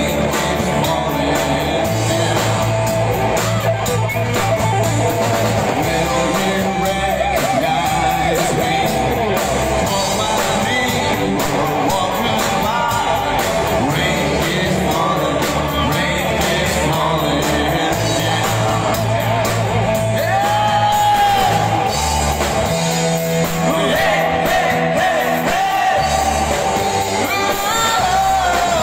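Live band playing a song: a man singing into a microphone over guitars and drums.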